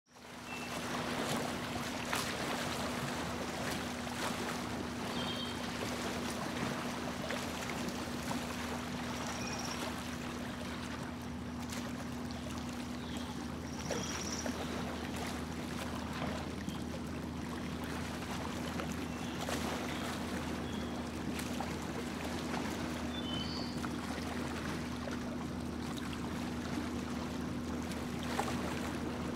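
Small boat's motor running with a steady hum while the hull moves through the water, with water and air rushing past throughout. A few brief high chirps stand out over it.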